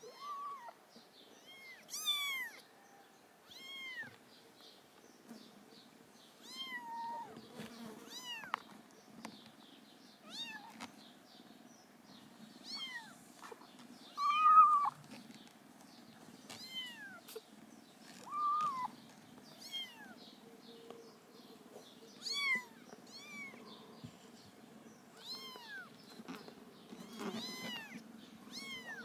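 Kittens mewing: many short, high-pitched mews that rise and fall, one every second or so, the loudest about halfway through.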